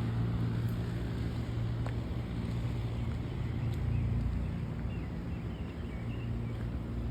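Steady low hum of a large fan running, with a few faint bird chirps near the end.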